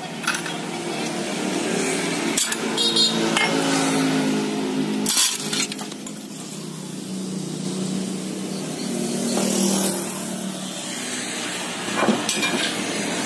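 Sharp metallic clinks and knocks, several in the first six seconds and one more near the end, over a steady low hum.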